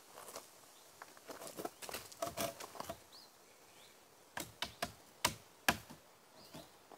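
Gravel crunching and scuffing under knees and shoes as a person kneels on a gravel pad, then a quick run of sharp wooden knocks as a timber noggin is shifted into place between floor joists, the last two knocks the loudest.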